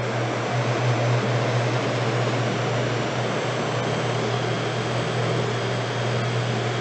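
Personal blender motor running steadily, a constant low hum under an even whirr, as it purées beetroot, ginger and water into juice.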